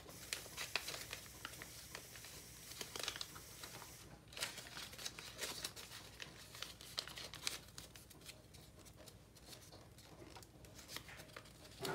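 Soft, irregular rustling and crinkling of a small piece of paper being folded and creased by hand.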